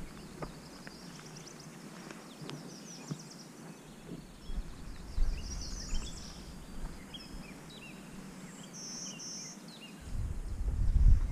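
Several songbirds chirping and twittering in short high trills over a faint outdoor background. About ten seconds in, a loud low rumble sets in on the microphone.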